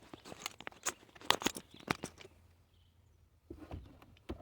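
Plastic trunk trim and its clips being handled and pulled loose: a quick run of sharp clicks and scrapes over the first two seconds, then a few more clicks near the end.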